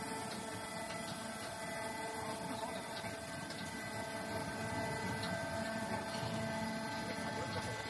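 Steady hum of a running concrete block-making line and its lift stacker, several steady tones over a rough low rumble.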